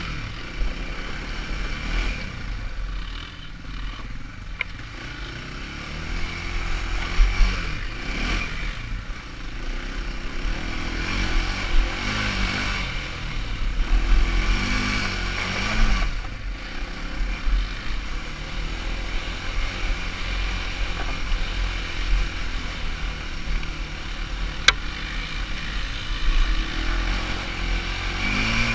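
ATV engine running as the quad is ridden over rough ground, its pitch rising and falling with the throttle, with a few sharp knocks.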